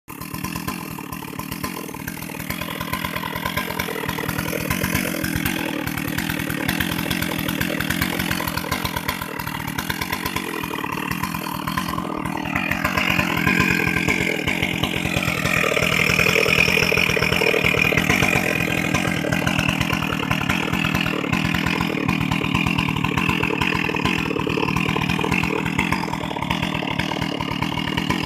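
Stihl MS 382 two-stroke chainsaw running steadily, growing louder for several seconds about halfway through.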